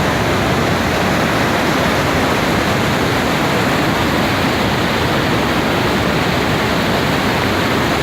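Water rushing steadily and loudly, an even unbroken roar with no changes, as from a waterfall.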